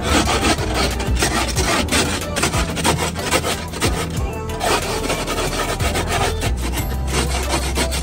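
Snow brush scraping and sweeping snow and ice off a car windshield in quick repeated strokes, heard from inside the car through the glass.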